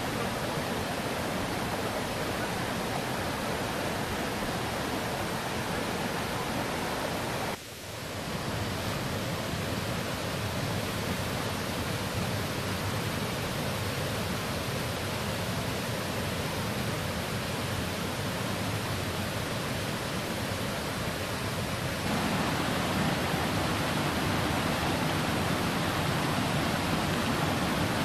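Steady rush of water from small waterfall cascades pouring over limestone ledges into pools. It drops out for a moment about seven and a half seconds in, and gets louder about twenty-two seconds in.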